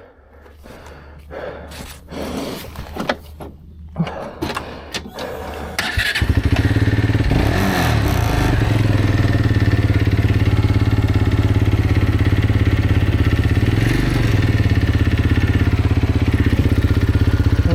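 Road motorcycle engine started about six seconds in, after a few clicks and scrapes of the bike being handled, then running steadily at idle.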